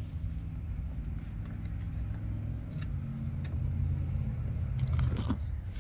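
Low, steady rumble of a motor vehicle engine running, with a few faint clicks.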